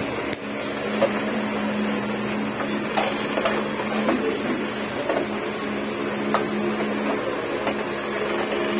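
A small motor whirring steadily at an even pitch, with a few light clicks.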